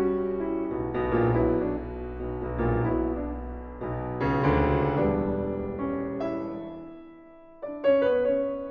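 Background music: piano chords struck about once a second, each ringing and fading, with a quieter lull near the end before a new loud chord.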